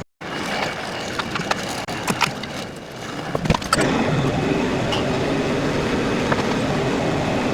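LS XR3140H tractor's diesel engine idling steadily, with several sharp clicks and knocks of metal parts being handled over it.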